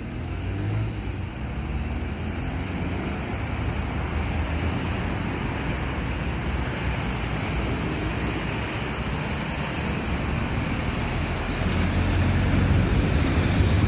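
Road traffic going past a crosswalk: a loud, steady noise of cars driving by, growing louder near the end as a vehicle comes closer.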